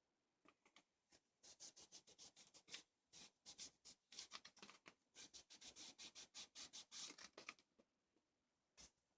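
Faint, rapid scratchy rubbing strokes as wood stain is worked into string wound around the base, running for about six seconds in the middle and then stopping.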